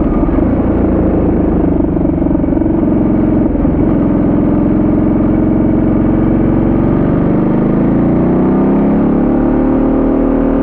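Ducati Multistrada 1200S V-twin engine running on the move, heard from the bike. Its note rises from about seven seconds in as the bike accelerates.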